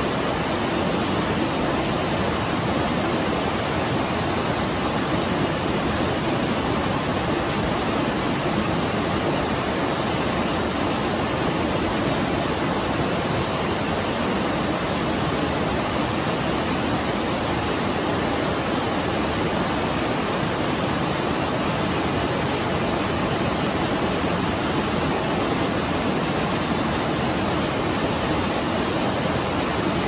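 Tiered waterfall pouring over rock ledges into a rocky stream: a steady, even rush of falling water.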